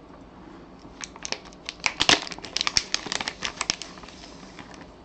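Trading card pack wrapper being torn open by hand: a quick run of crinkling and tearing crackles that starts about a second in and stops a little before the end.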